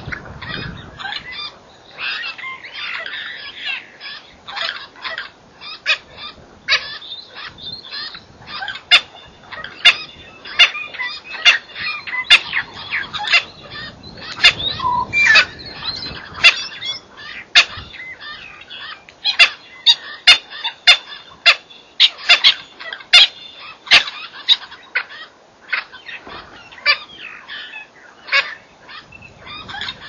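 A mixed flock of birds calling together: a dense run of short, sharp chirps and squawks, thickest through the middle of the stretch.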